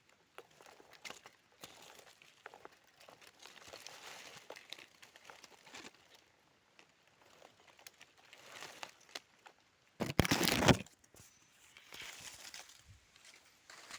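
Açaí fruit being stripped by hand from the bunch: crinkling, rustling and small crackles and clicks of stems and berries, with a louder burst of rustling about ten seconds in.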